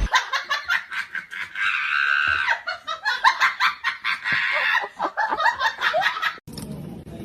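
High-pitched laughter, a quick run of giggling pulses with one held squeal in the middle, that cuts off sharply near the end.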